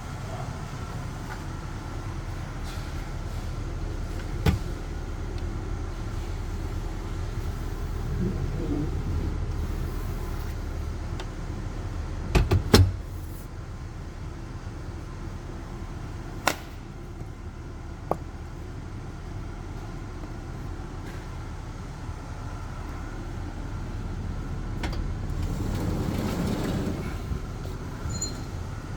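Steady low rumble of a vehicle, with a few sharp clicks and a loud cluster of knocks about twelve seconds in.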